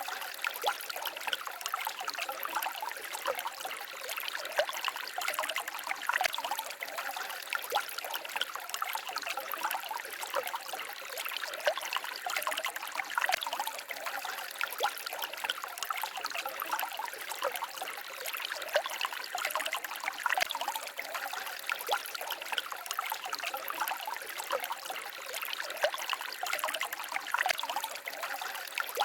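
Forest stream babbling and trickling over rocks: a steady splashing rush with constant small gurgles and plinks.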